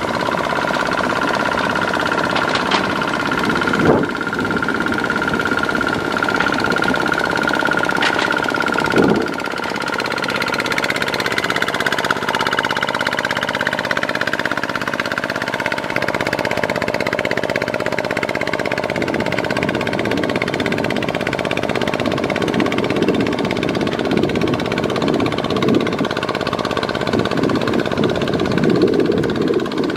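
Single-cylinder diesel engine of a two-wheel walking tractor (power tiller) running steadily under load as its steel cage wheels churn through a flooded, muddy paddy, with water and mud splashing. Two sharp knocks stand out, about four seconds in and again about nine seconds in.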